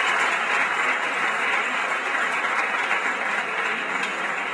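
Large audience applauding steadily, many hands clapping at once, easing off slightly near the end.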